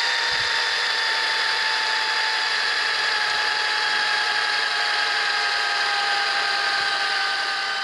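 Handheld electric drill running continuously, its motor whine slowly drifting lower in pitch, as it spins a length of number 9 tie wire clamped in a vise at the far end to twist and straighten it.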